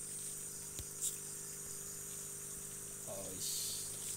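Night crickets chirring in a steady high-pitched trill over a steady low hum, with a couple of faint clicks from handling the phone.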